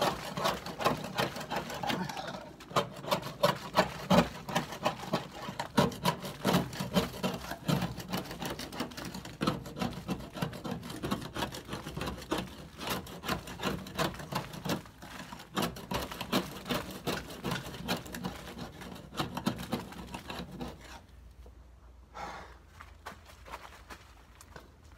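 Hand scraper rasping barnacles and marine growth off a boat's hull in quick, repeated strokes. The scraping stops about 21 seconds in, with a few strokes again near the end.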